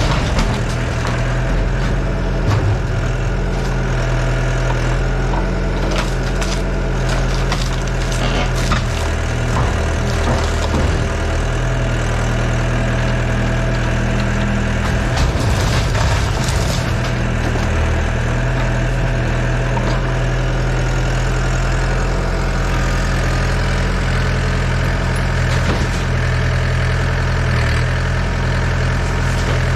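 Yanmar Vio80 excavator's diesel engine running steadily, with bursts of cracking and crunching a few seconds in and again around the middle, typical of wooden building timbers being broken during demolition.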